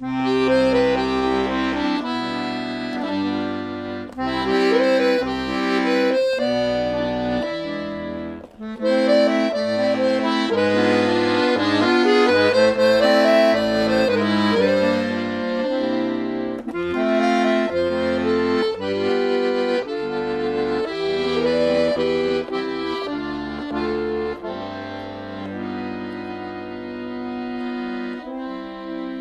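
Accordion music: a melody over held chords and stepping bass notes, growing softer over the last few seconds.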